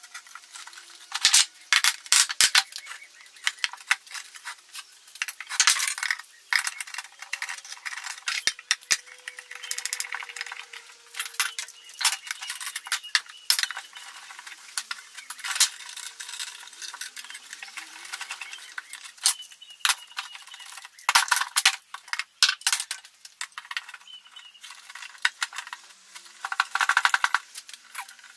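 Steel bar clamps clinking and sliding as they are set across a glued, finger-jointed pallet-wood crate, with the wooden panels knocking into place. It is an irregular run of sharp clicks, clinks and scrapes.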